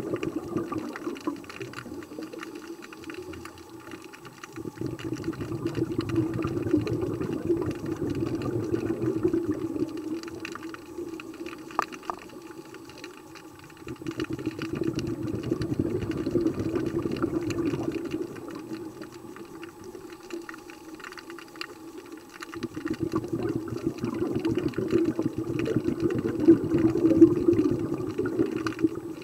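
Scuba diver's breathing underwater, heard through the camera housing: three long gurgling swells of exhaled bubbles from the regulator, about every nine seconds, with quieter inhalations between. A short click about twelve seconds in.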